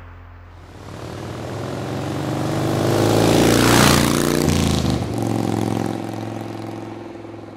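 A motorcycle engine passing by. It grows louder to a peak about four seconds in, drops in pitch as it goes past, then fades away.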